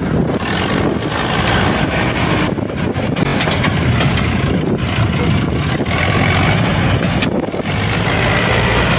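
Diesel engine of a Sonalika DI 750 III tractor running steadily as it pulls a trolley loaded with soil over a dirt track.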